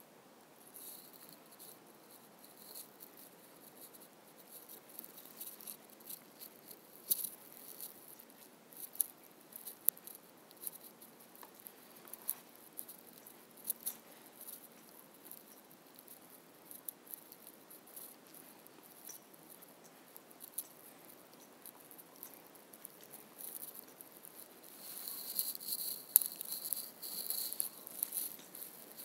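Faint, irregular clicks and a high crackle over a quiet room hiss, growing denser near the end.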